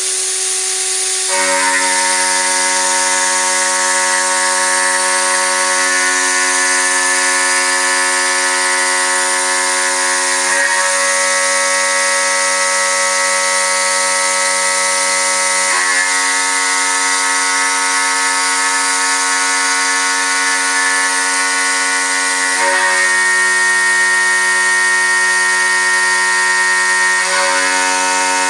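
Small 5040 CNC router milling aluminium: a steady high whine of spindle and cutter, made of several held tones over a hiss. It gets louder about a second in, and its tone shifts a few times as the cut goes on.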